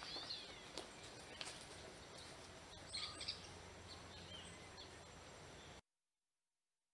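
Faint outdoor ambience with a few short bird chirps and light clicks, then the sound cuts off suddenly to silence near the end.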